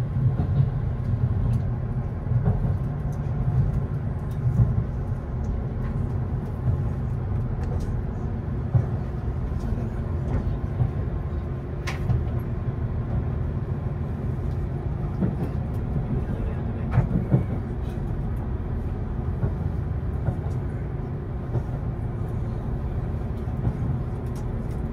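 Cabin running noise of an HC85 series hybrid diesel-electric express train: a steady low rumble heard from inside the passenger car, with occasional faint clicks.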